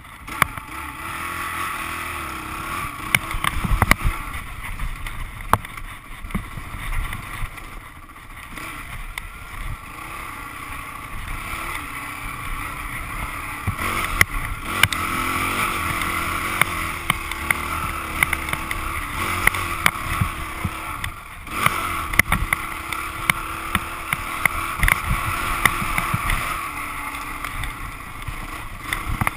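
Dirt bike engine running under varying throttle as the bike rides over rocky trail, with frequent knocks and clatter from rocks and the bike's chassis.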